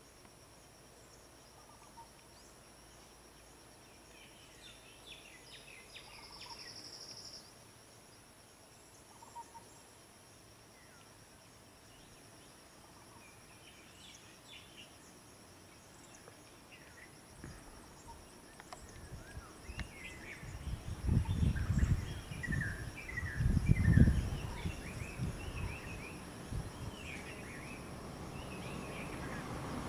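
Birds chirping here and there over a steady high insect drone. About twenty seconds in comes a few seconds of loud, low rumbling noise, and a low rumble builds again near the end.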